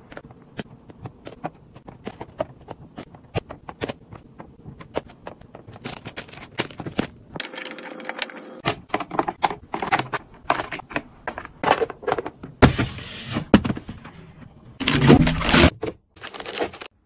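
Food and containers being handled and set down while a refrigerator is organised: a busy run of light clicks, taps and knocks mixed with rustling of packaging, with a louder burst of rustling and knocking near the end.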